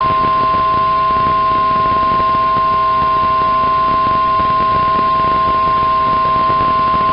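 Weatheradio Canada warning alarm tone: a loud, steady 1050 Hz tone, with a fainter lower tone beneath it, over radio static hiss. It starts abruptly and holds unbroken. It signals that a warning message is about to be broadcast.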